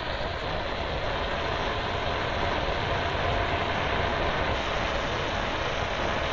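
Gas burner flame under a tyre vulcanizing press, a steady rushing noise as it heats the press to cure a repair patch on a cut tyre.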